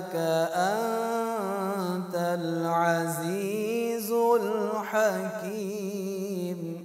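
A man's voice reciting the Quran in melodic tajwid style, a long drawn-out phrase whose pitch winds up and down in ornamented runs, fading out at the very end.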